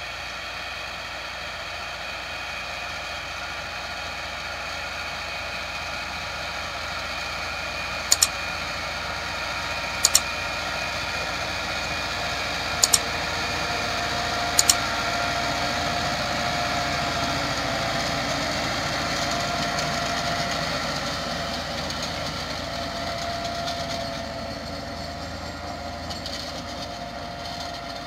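Massey Ferguson 385 tractor's diesel engine running steadily under load, pulling a rotavator that is working the soil. The engine grows louder as the tractor comes closer and eases off after about 20 seconds. Four sharp double clicks come between about 8 and 15 seconds in: the click effects of a like-and-subscribe overlay.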